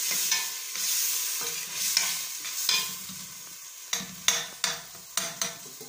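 Chopped onions sizzling in hot ghee in a stainless steel pot while a metal spoon stirs them. In the second half the spoon scrapes and clinks against the pot several times as the sizzle dies down.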